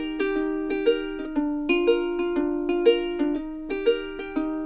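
Background music: a light, plucked-string tune with a steady run of notes, each struck sharply and left to ring out.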